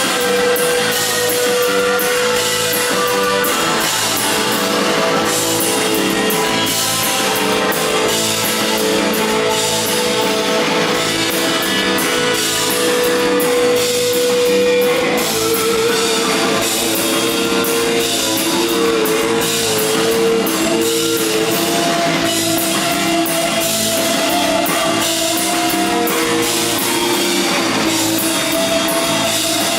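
Live rock band playing, with electric guitar over a steady drum kit beat.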